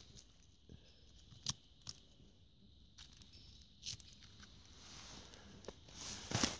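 Small knife clicking and scraping as it cuts clumps of mushrooms from a snowy, moss-covered stump, a few sharp clicks spaced out, then a louder rustle of handling near the end.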